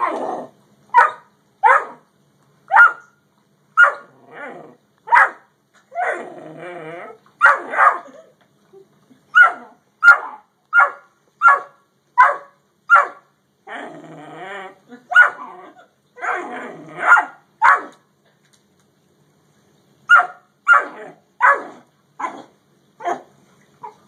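Dogs squabbling over a bone: a run of short, sharp barks, roughly one or two a second, broken by several stretches of rough growling. After a pause of about two seconds a last burst of barking follows.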